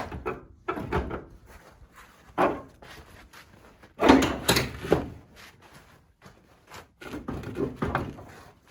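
Sheet-metal front-end panels of a 1989 Chevy S10 clunking and rattling as they are wrestled loose by hand, a string of irregular knocks and scrapes with the loudest bangs about four seconds in.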